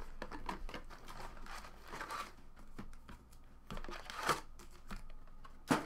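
Trading card box and foil-wrapped card packs being handled: rustling and crinkling with scattered light taps, with two louder crinkles, about four seconds in and near the end.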